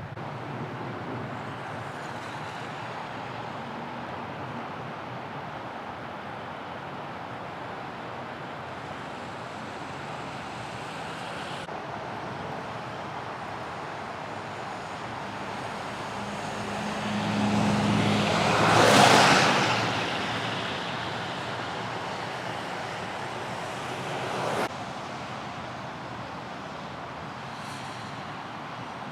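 Steady street traffic noise, with a vehicle passing close about two-thirds of the way through: its engine and tyre noise swell to a peak and fade. A background noise cuts off suddenly a few seconds later.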